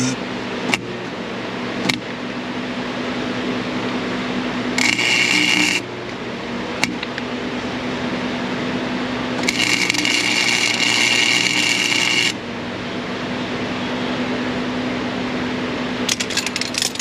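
Welding arc crackling in two bursts, about a second long some five seconds in and about three seconds long near ten seconds in, as a nut is welded onto a broken exhaust manifold stud to back it out. A steady low hum runs underneath, with a few sharp clicks between the bursts and a short spatter of crackles near the end.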